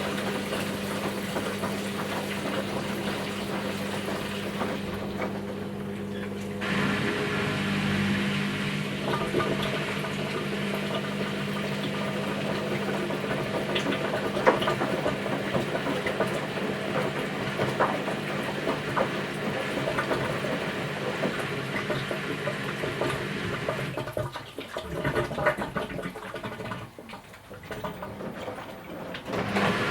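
Washing machine running its wash cycle: a steady motor hum with water sloshing and small clicks as the drum turns. Near the end it goes quieter and uneven for a few seconds before the hum comes back.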